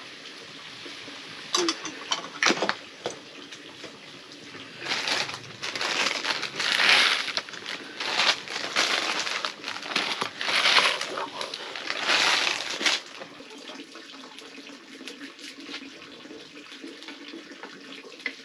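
A ladle stirring noodles in a wok of hot liquid over a wood fire: a few knocks, then a run of wet swishing surges for several seconds, easing to a quieter steady hiss from the wok.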